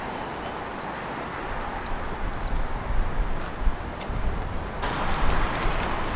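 Street traffic noise with a low wind rumble on the microphone, swelling louder about five seconds in.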